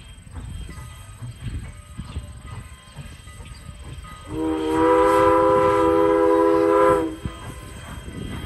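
Steam locomotive whistle sounding one long blast of about three seconds, a chord of several pitches, starting about four seconds in. A low train rumble with scattered knocks runs underneath.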